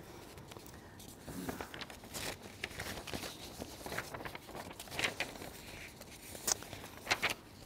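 Faint handling noise: scattered soft rustles and small clicks, with a few sharper ones in the second half.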